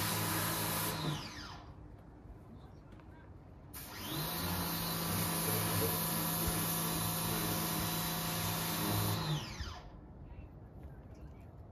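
A small high-speed electric motor running, winding down about a second in, starting again with a rising whine about four seconds in, and winding down again near the end.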